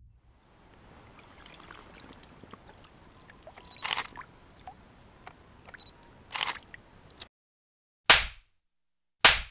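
Water sloshing and splashing as a big brown trout flops in the angler's hands, with two splashes about 4 and 6.5 seconds in, then two sharp, loud slaps from the thrashing fish about a second apart near the end.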